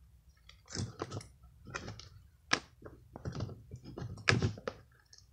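Homemade slime being squeezed and worked by hand, giving a string of irregular wet clicks and pops, about two a second.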